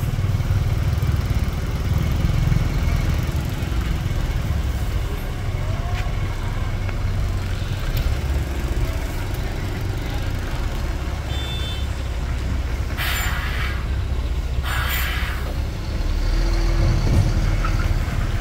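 Diesel engine of a semi-trailer truck running at low speed through a slow manoeuvre, a steady low rumble. About two-thirds of the way through, two short hisses of compressed air from its air system, under two seconds apart.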